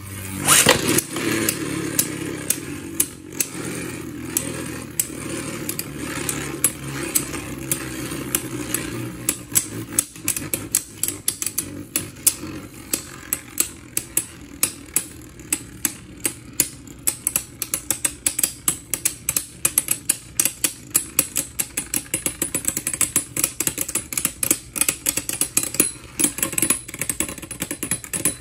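Two Beyblade Burst spinning tops in a plastic stadium: one lands with a sharp clack about half a second in and both spin with a steady whirring hum, while they knock against each other in clicks that come faster and closer together through the second half.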